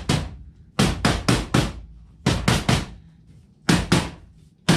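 Mallet tapping the drawer's pull-handle tabs into their slots: sharp knocks in quick runs of two to four, about four a second, with short pauses between runs.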